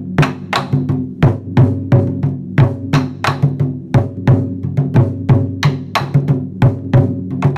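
Music with a quick, steady drum beat of sharp strikes, about three a second, over sustained low tones.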